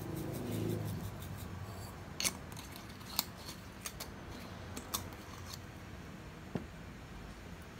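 Black sesame seeds shaken from a metal shaker, landing on a plate of food with a handful of light, scattered ticks over a steady faint hiss. A low hum sounds in the first second.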